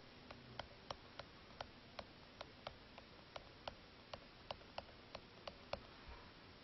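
Faint, evenly spaced ticks, about three a second, over near silence.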